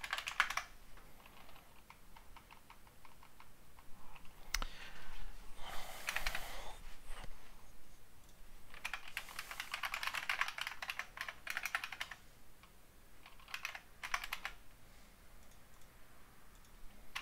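Typing on a computer keyboard: bursts of rapid key clicks separated by pauses, the longest run in the middle, with one sharp single click about four and a half seconds in.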